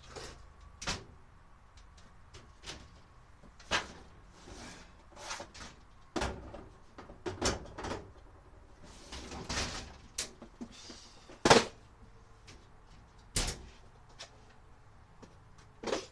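Irregular knocks and clunks of objects being handled and set down, about a dozen in all. The sharpest knock comes about eleven and a half seconds in.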